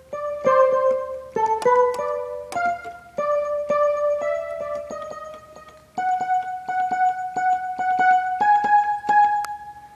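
Yamaha electronic keyboard playing its rain sound-effect voice: a slow series of held notes that step mostly upward in pitch, with many sharp clicks over them like drops. A long note holds about six seconds in, and the last note fades near the end.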